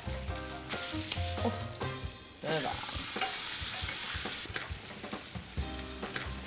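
A thick sirloin steak sizzling in a very hot cast-iron skillet as it is turned with tongs. The sizzle swells sharply about two and a half seconds in, as the unseared side meets the hot pan, then eases off near the end.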